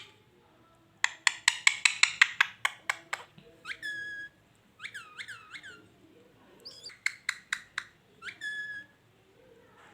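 Pet parrot making a quick run of sharp clicks, then short whistled calls that slide down in pitch, then a few more clicks and one more call near the end.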